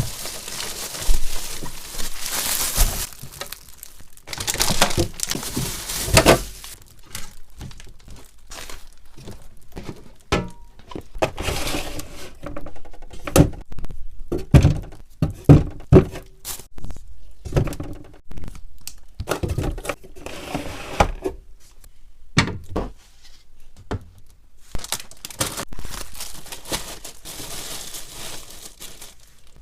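Food containers, jars and packages being handled and set into a fridge: a string of separate knocks and thunks as items go onto the shelves, with plastic packaging crinkling and rustling in between.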